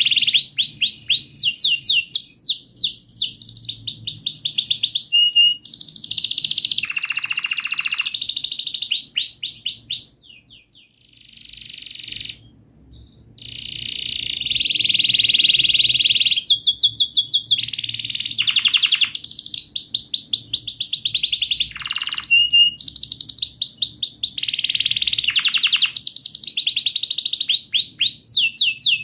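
Domestic canary singing a long song of fast rolling trills and rapidly repeated chirps. It breaks off briefly about ten seconds in, then resumes.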